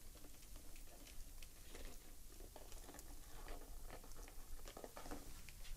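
Faint rustling and small irregular clicks of a thin wire LED light string being fed into a flexible plastic tube by hand.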